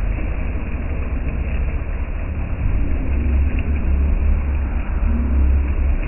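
Steady rush of water from a dome-shaped bell fountain spilling back into a pond, over a strong, steady low rumble.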